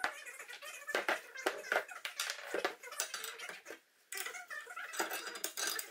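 Iron post vise parts clinking and knocking against each other and the wooden bench as they are handled and fitted together, in irregular short knocks with a brief pause about four seconds in.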